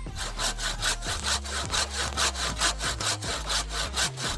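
A hand saw cutting through wood in quick, even back-and-forth strokes, about five or six a second.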